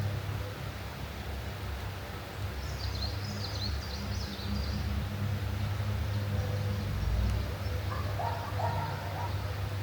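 A few small birds chirping: a quick run of high chirps a few seconds in, and a couple of lower calls near the end. Under them runs a steady low rumble, which is the loudest sound throughout.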